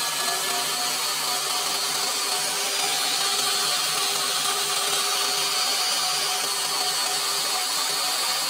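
Electric stand mixer running steadily, its beater whirring through eggs and sugar in a stainless steel bowl. It gets slightly louder about three seconds in.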